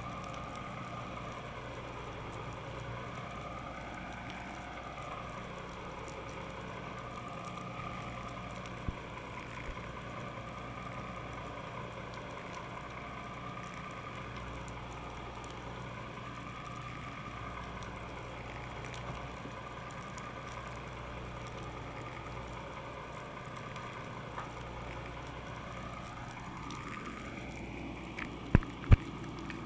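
A boat's engine running steadily with a low hum and a whine that slowly wavers up and down in pitch. Two sharp knocks come close together near the end.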